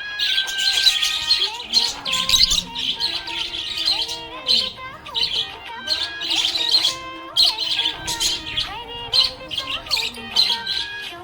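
Budgerigar chirping and warbling in quick, repeated bursts of high chirps, over background music with held notes.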